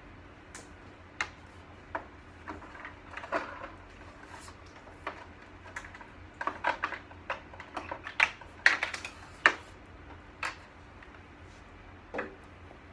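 Irregular clicks and knocks of hard plastic and metal parts as a medical computer cart and its monitor mount are worked on by hand, coming thickest in the middle, over a low steady hum.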